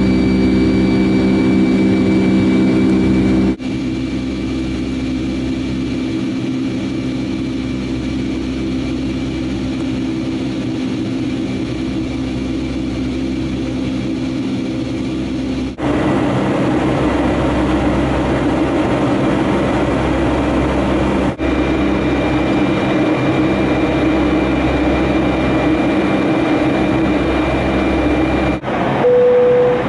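Boeing 757-200 jet engine heard from inside the cabin over the wing during the climb after takeoff: a steady drone with humming tones, which shifts abruptly in level and tone a few times. A short single tone sounds near the end.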